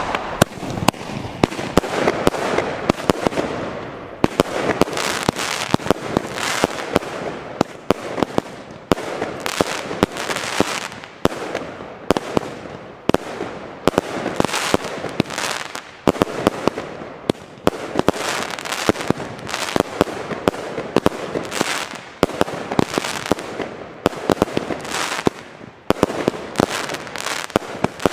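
Consumer firework cake (battery) firing shot after shot, with loud aerial bursts overhead. The firing starts suddenly and goes on as a dense, unbroken run of bangs.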